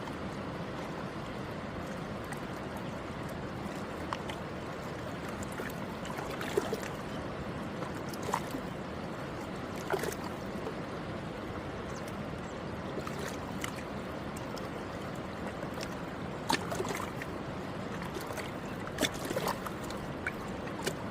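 Alaknanda river flowing, a steady rush of water with a few brief clicks breaking through it.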